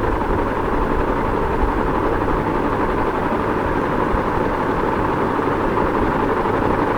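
Ceiling fan running at a steady speed: an even, unbroken whir of moving air and motor.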